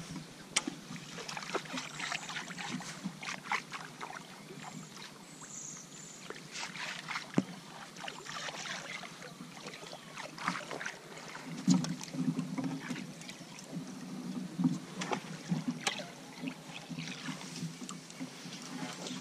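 Small fishing boat on the water: scattered clicks and knocks from gear and water against the hull, with a low hum joining in the second half.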